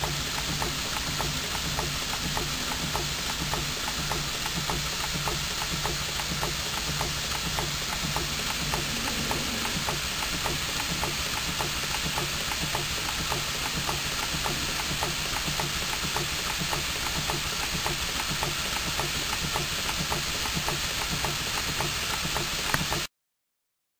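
Model twin-cylinder overcrank engine running on compressed air: a fast, steady patter of exhaust beats and mechanical clatter over a hiss of air, which cuts off suddenly near the end.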